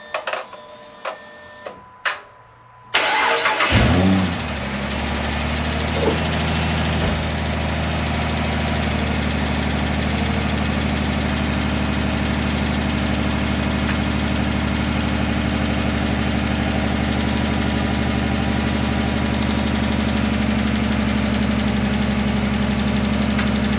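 A few short electronic beeps and clicks, then about three seconds in the 2010 Dodge Charger's 3.5-litre V6 cranks and catches, flares up briefly and settles into a steady idle. This is its first start after a timing belt, water pump and thermostat replacement.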